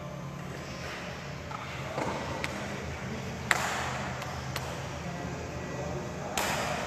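Badminton rackets striking a shuttlecock in a rally: sharp hits about a second apart, over a steady low hum. A louder burst of noise comes just before the end.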